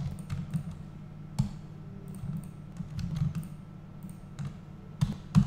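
Scattered computer keyboard and mouse clicks, a few irregular taps with the sharpest two near the end, over a steady low hum.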